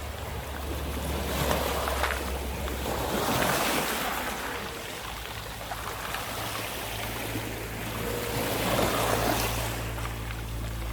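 Water washing and splashing, swelling louder twice, with wind rumbling on the microphone.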